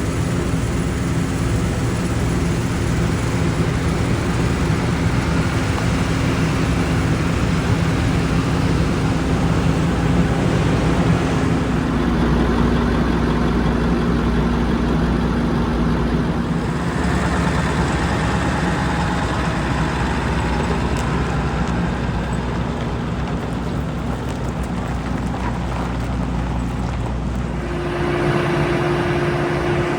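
Heavy diesel vehicle engine running steadily, a low rumble with steady tones. The sound changes abruptly about twelve, seventeen and twenty-eight seconds in.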